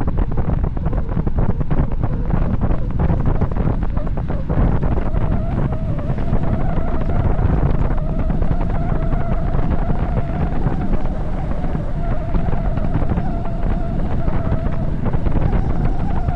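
Heavy wind buffeting on the microphone of a bicycle descending at high speed, a steady low rumble. About four seconds in a steady whine joins it and holds.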